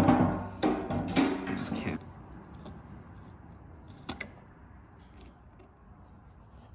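Steel jerry can clanking and scraping as it is set in place, its body ringing, for about two seconds. Then a faint steady hiss of gasoline draining from the motorcycle's fuel line into the can, with a single click about four seconds in.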